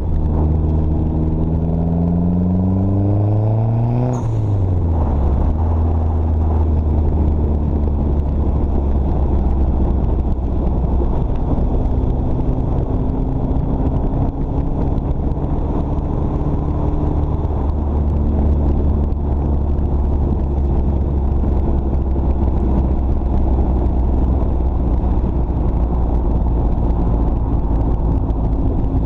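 A 2005 Dodge Neon SRT-4's turbocharged 2.4-litre four-cylinder, heard through its side-exit exhaust while driving. The revs climb for about four seconds, then drop sharply with a brief hiss from the turbo's blow-off valve as the throttle closes. It then settles into a steady, deep drone at cruise.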